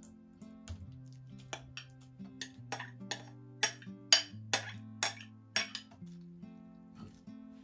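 Soft acoustic guitar music, over a run of sharp little clinks and plinks about two a second from the stainless mesh strainer and glass bowl as lilac syrup is strained, loudest about four seconds in.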